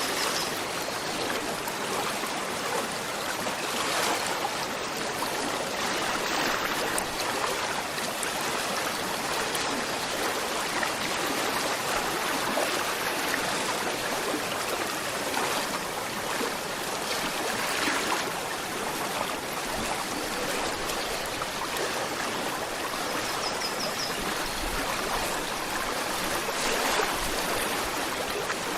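Gentle river flowing, a steady, even trickling rush of water that does not let up.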